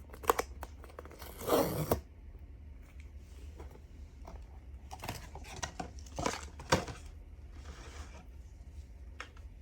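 A blind box's packaging being opened by hand: a burst of tearing about a second and a half in, then a run of sharp clicks and crinkling rustles of cardboard and plastic wrap a few seconds later.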